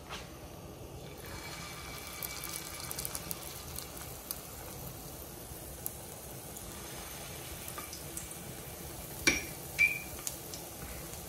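Oil sizzling and crackling in a frying pan for pancakes, a steady hiss that starts about a second in. Near the end a utensil strikes a dish or the pan twice, two sharp ringing clinks.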